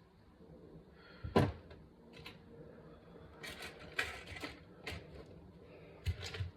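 Irregular sharp clicks and snaps of wire cutters handling and snipping stiff wire, the loudest about one and a half seconds in, over a steady low hum.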